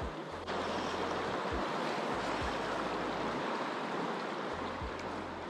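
Steady rushing of a wide, fast-flowing river current.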